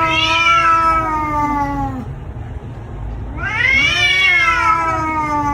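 Domestic cat giving two long, drawn-out meows, each rising and then falling in pitch, about three seconds apart. A low steady rumble lies underneath.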